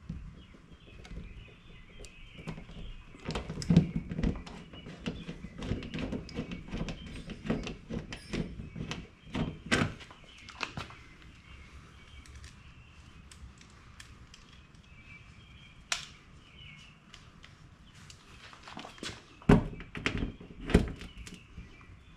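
Metal clicks and knocks of a hand tool setting rivet nuts (nut serts) into drilled holes in a Jeep Cherokee's body panel, in scattered bunches with a few louder knocks near the end.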